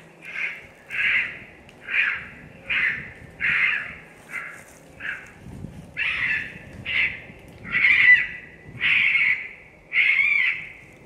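Raccoon squalls used for coon calling: harsh, rough fight cries repeated about once a second, each well under a second long.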